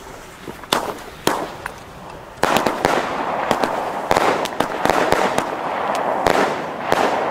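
A 9-shot breaking-shell firework battery firing: two sharp shots about a second in, then from about two and a half seconds a dense run of shots and bursts overhead. A second battery is going off along with it, lit by the first.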